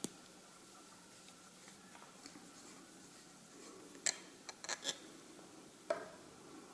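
A lacquered Sailor King of Pens fountain pen's screw cap being turned off the barrel in gloved hands. Small clicks and light rubbing, with a quick cluster of sharp clicks about four to five seconds in and one more click near six seconds as the cap comes free.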